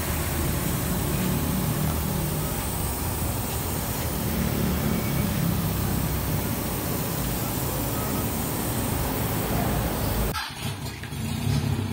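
Steady road traffic and engine rumble under a constant hiss. About ten seconds in it cuts off abruptly and a different low hum takes over.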